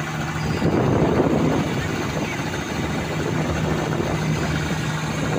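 A fishing boat's engine drones steadily under splashing water and thrashing fish as a purse-seine catch of scad is hauled and scooped aboard. The splashing grows louder about half a second in.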